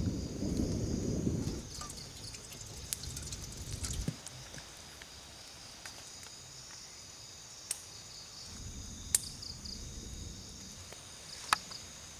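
Night-time insect chorus, a steady high trilling of crickets. A low rumbling noise comes and goes at the start and again in the second half, and a few sharp clicks break through.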